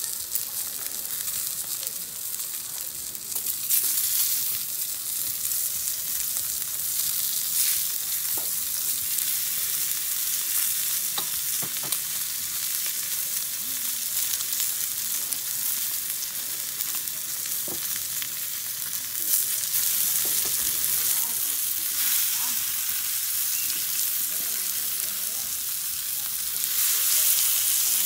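Bone-in rib steak, mushrooms and green capsicum rings sizzling on a hot ribbed grill plate: a steady hiss with small crackles and pops, swelling louder a few times.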